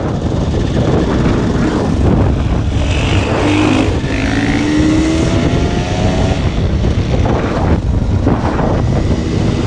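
Off-road dirt bike engine running and revving, its pitch climbing for a couple of seconds around the middle.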